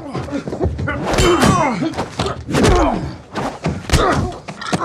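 Hand-to-hand fight: a string of heavy thuds and blows, with men's grunts and strained, falling cries between them.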